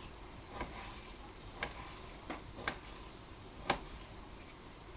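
A kitchen knife knocking on a cutting board while chicken breast is cut into chunks: about five sharp, irregular taps, the loudest near the end.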